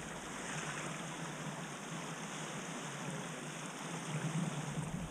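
Steady rush of wind and water from an Alerion sailboat under way upwind, heard from a camera at the top of the mast.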